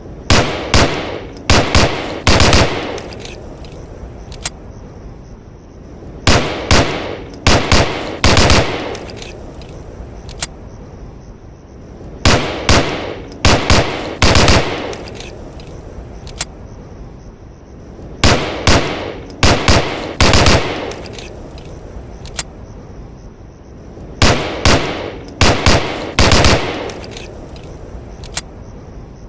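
M1911A1 .45 ACP pistol firing in quick strings of several shots, with echoing after each shot. The strings come about every six seconds, each followed about two seconds later by a single sharp click.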